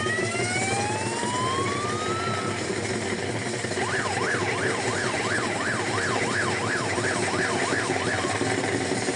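Siren sound. It starts with one rising wail over the first couple of seconds, then, from about four seconds in, switches to a fast up-and-down warble of about three cycles a second that stops shortly before the end. A steady background din runs underneath.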